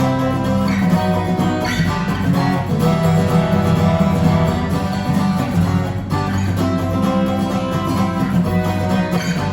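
Acoustic guitar strummed in chords, an instrumental outro of a song.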